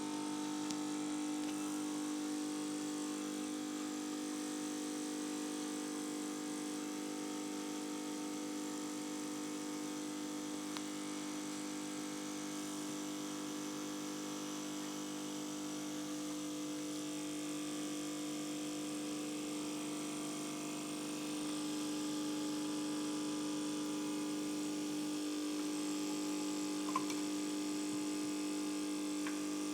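Capsule coffee machine's pump humming steadily as it brews a cup, getting slightly louder about two-thirds of the way through.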